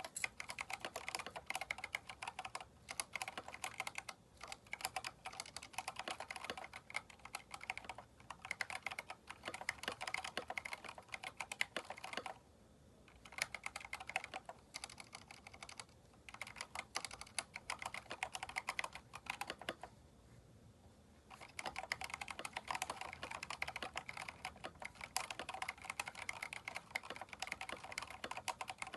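Fast typing on a Keychron K4 mechanical keyboard fitted with aftermarket keycaps: a dense run of key clacks, with brief pauses about twelve seconds in and again about twenty seconds in.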